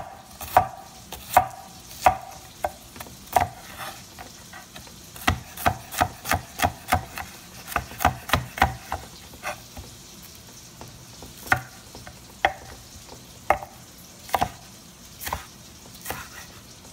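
Chef's knife chopping spring onions on a wooden cutting board: sharp knocks of the blade hitting the board, spaced apart at first, quickening to about three a second in the middle, then slowing to single strokes.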